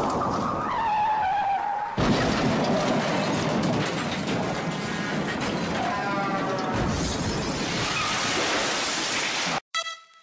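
Title-sequence sound effects: a loud, noisy crash-like wash with a few gliding tones over it. It cuts off abruptly near the end, and electronic music with a steady beat starts.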